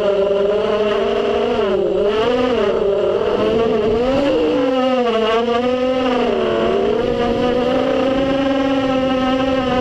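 FPV racing quadcopter's motors and propellers whining, heard from on board, the pitch wavering up and down as the throttle changes through turns.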